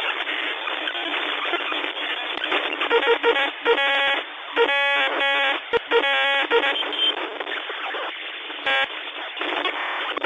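Crackly, narrow-band static like a degraded broadcast or radio signal, broken by short buzzy tone bursts several times between about three and seven seconds in and once near nine seconds.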